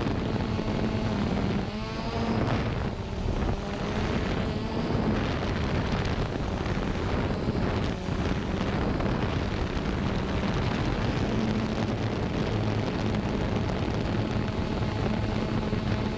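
Xiro Xplorer G quadcopter's motors and propellers whirring steadily, heard from its on-board camera with some wind noise. The motor pitch wavers up and down about two to four seconds in.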